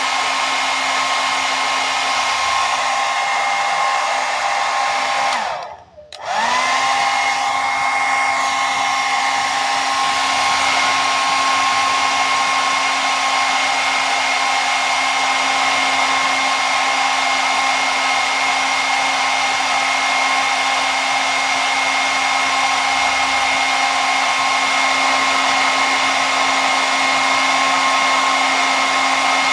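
Hair dryer blowing steadily, a rushing air noise over a steady motor whine. About six seconds in it cuts out for a moment, then the whine rises back up to speed and it runs on steadily.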